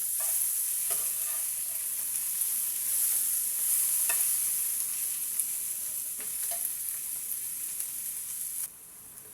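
Fish frying in oil in a frying pan: a steady high sizzle with a few faint clicks. The sizzle cuts off suddenly near the end.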